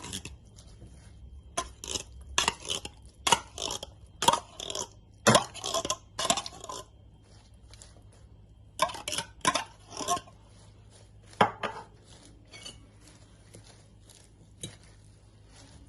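Kitchen utensils clattering and scraping in a bowl in irregular bursts of short knocks and rustles, with quieter gaps between them, as salad ingredients are added and mixed.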